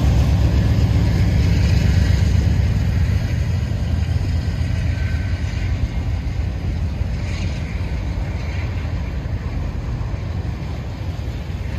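Freight train rolling by: a steady low rumble of cars on the rails that slowly fades.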